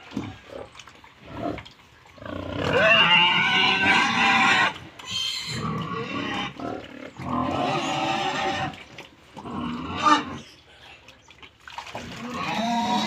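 Pigs squealing in loud, harsh bouts of one to two seconds each, with quieter gaps between them.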